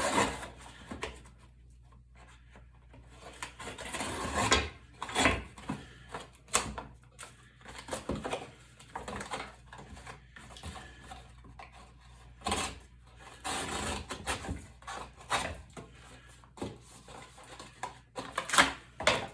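A folding knife slicing through a cardboard box in a string of irregular scraping, rasping cuts. Rustles and knocks from the cardboard being handled come between the cuts.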